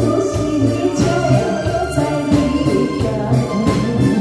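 Woman singing a Taiwanese ballad into a microphone over keyboard accompaniment with a steady beat.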